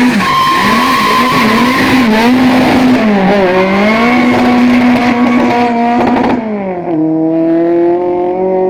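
Car engine revving hard, its pitch rising and falling several times and then held high, before dropping to a lower steady note about seven seconds in. Tyre squeal from wheelspin runs with it.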